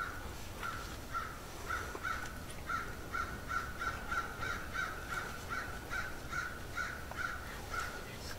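Wild turkeys clucking: a steady run of short calls, about two or three a second.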